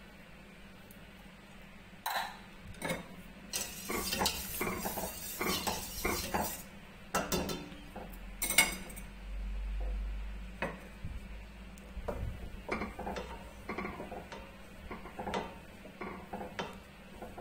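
Wooden spatula stirring milky liquid in a stainless steel pot: irregular clicks, knocks and scrapes of wood against the metal pot, starting about two seconds in, with one sharper knock near the middle.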